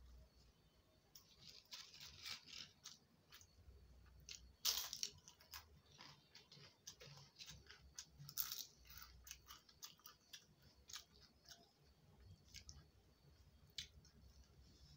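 Quiet close-up eating: chewing and soft crackles from mixing rice by hand on a plate, with sharp crunches of crisp papad, the loudest about five seconds in and again about eight and a half seconds in.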